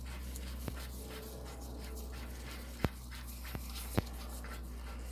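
Steady low hum with a few light, sharp metallic clicks as a bolt is fitted by hand into the driveshaft flange.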